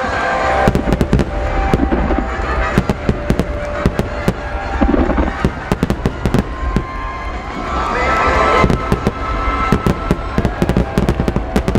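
Starmine firework barrage: many aerial shells bursting in rapid succession, sharp bangs and crackles over a continuous low rumble, with music playing underneath.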